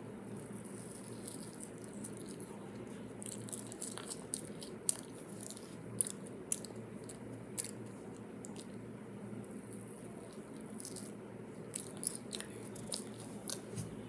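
A child biting and chewing a pink-and-white sweet, with scattered small, sharp mouth clicks over a steady low room hum.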